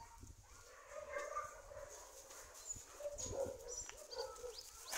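Dogs whining and barking faintly, with short high bird chirps in the second half.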